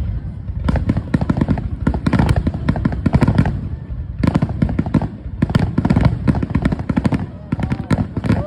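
Fireworks going off: a rapid run of sharp bangs and crackles in several dense clusters over a low rumble, like a barrage of salutes and crackling shells.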